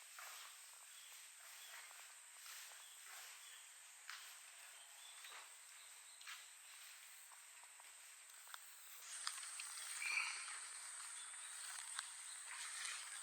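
Faint outdoor ambience: a steady high-pitched insect trill, with scattered soft clicks and rustles that grow a little louder from about nine seconds in.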